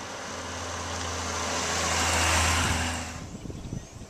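Large touring motorcycle riding toward the microphone, its engine and road noise growing louder, then dropping off about three seconds in.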